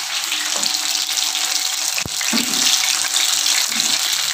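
Chicken pakoras frying in a pan of hot oil: a steady, dense sizzle. A single sharp click comes about two seconds in.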